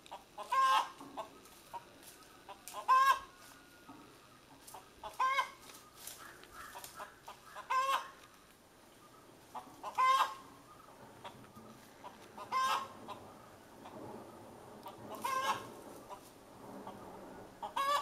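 Hen cackling after laying an egg: short clucks building to a loud call, repeated about every two and a half seconds, eight times in all.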